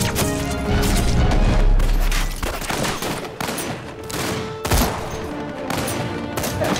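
Film battle gunfire: rapid volleys of rifle and machine-gun fire, dense for the first two seconds or so and then more scattered, with one loud report about four and a half seconds in, over a dramatic music score.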